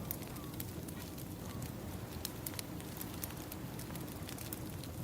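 Wood fire crackling, with irregular sharp pops, over a steady low wash of ocean waves.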